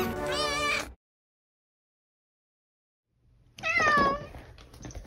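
The anthem music cuts off about a second in; after a silent gap a cat gives one falling meow about three and a half seconds in, followed by a few faint clicks.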